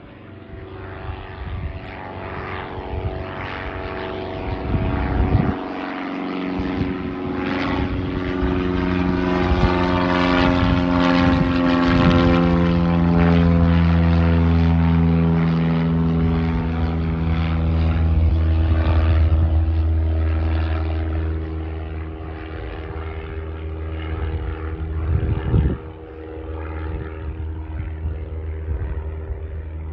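A single-engine light propeller airplane flies over: its engine and propeller drone grows louder to a peak about twelve seconds in, then fades as it moves away.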